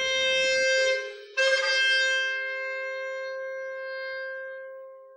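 Music from a wind instrument with a woodwind sound, playing long held notes. A short break comes about a second in, and the last note fades away slowly.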